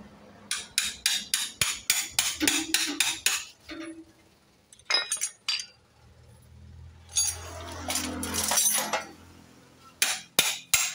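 Steel hand tools striking and clinking against metal engine parts: a quick run of sharp ringing strikes, about three or four a second, then a few more strikes, a longer scraping clatter, and more clinks near the end.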